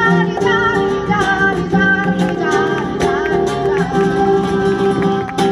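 Flamenco music: a singer's wavering, ornamented voice over guitar accompaniment.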